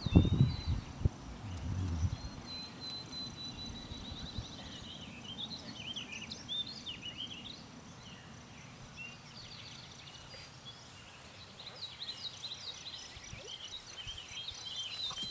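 Small birds chirping and trilling over steady outdoor background noise, with a thin, steady high-pitched buzz twice. Loud low rumbles in the first couple of seconds.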